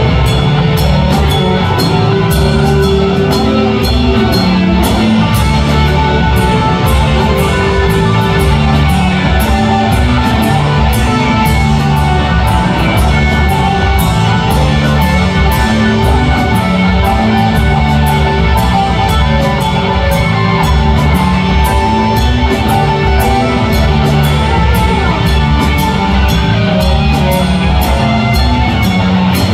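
Live rock band playing loud: two electric guitars over bass guitar and a drum kit keeping a steady beat.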